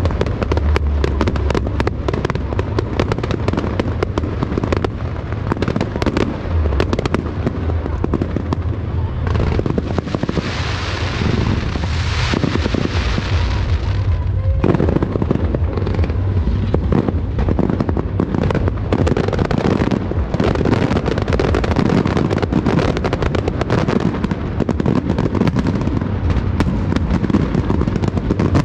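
Fireworks display firing continuously: a dense run of bangs and crackles. From about a third of the way in, a loud hiss of a ground fountain runs over it and cuts off suddenly around the middle.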